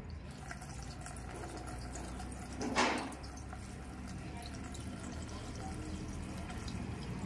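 TT oil trickling from a plastic jug through a metal funnel into a motorcycle engine's oil filler, filling the crankcase for an engine flush. Faint and steady, with one brief louder noise about three seconds in.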